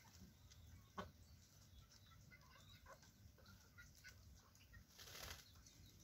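Faint, scattered clucking of chickens and roosters, with a single sharp knock about a second in and a short rustling swell around five seconds.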